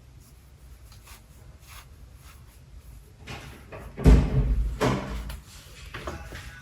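A few knocks and thuds: a loud thud about four seconds in, another just before five seconds, and smaller knocks after, with faint light clicks before them.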